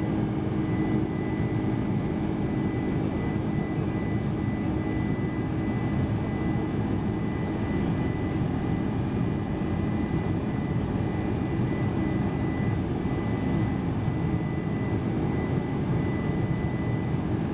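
Boeing 747-400 heard from inside the passenger cabin in flight: a steady rush of engine and airflow noise with a faint constant whine on top.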